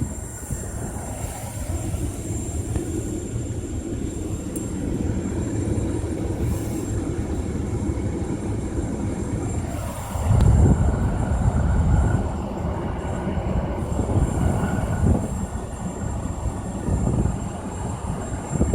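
Infiniti G35 air-conditioning system hissing steadily over a low rumble. The rumble grows louder about ten seconds in.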